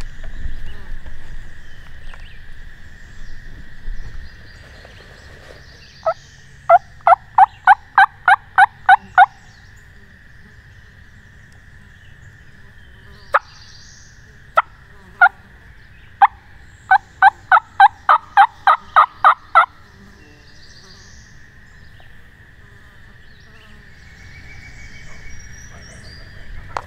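Turkey yelping: two loud runs of about ten evenly spaced yelps, about three a second, with a few single notes between them.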